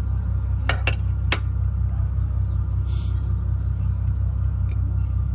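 A steady low rumble, with three sharp clinks of tableware against a plate in the first second and a half and a short hiss about three seconds in.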